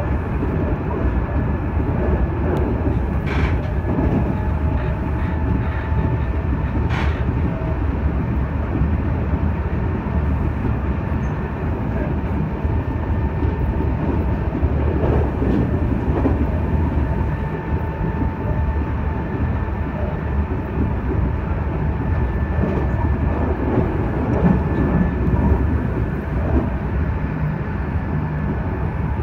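Meitetsu 2300 series electric train running at speed, heard from inside the front car: a steady rumble of wheels on rails with a faint steady whine. Two sharp clicks come in the first several seconds.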